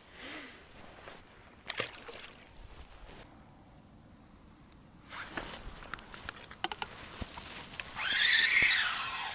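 Scattered short clicks and rustles, then about 8 s in a loud whooshing hiss that swells and fades over about a second: a feeder rod being cast, its line running off the spinning reel.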